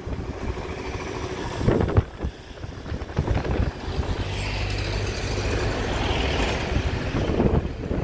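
Road traffic noise with a low engine hum through the middle and louder swells as vehicles pass, mixed with wind noise on the microphone.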